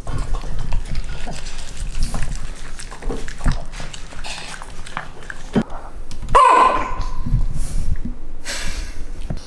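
Italian greyhound eating from a stainless steel food bowl: chewing and licking, with clicks and knocks against the bowl. About six seconds in, one loud dog cry that starts high and falls in pitch.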